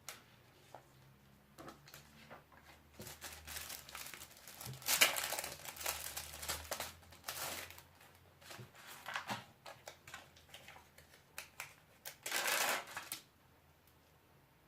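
Crinkling and rustling of craft materials being handled, in irregular bursts with small clicks between them, loudest about five seconds in and again for about a second near the end.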